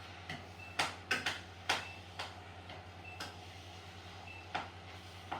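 A spoon tapping and scraping against a pan while stirring a meat sauce: irregular sharp clicks, a few with a short metallic ring, over a steady low hum.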